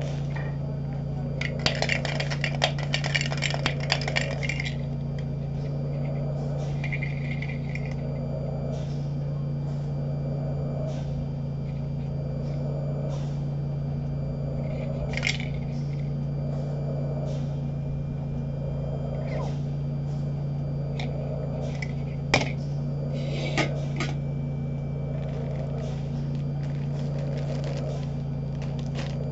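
A small metal tin being handled: rattling and clinking for a couple of seconds about two seconds in, then a few single sharp clicks, over a steady low hum.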